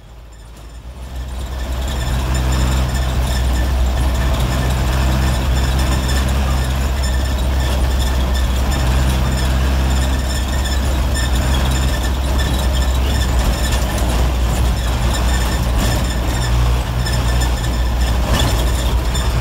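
Cabin noise of an old 1990s Mitsubishi diesel engine in a medium bus running flat out at top speed: a loud steady low drone with engine tones that rise and fall. It swells up over the first two seconds, then holds.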